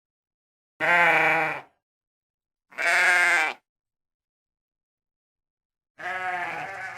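A farm animal bleating: three separate bleats of about a second each, the third starting near the end.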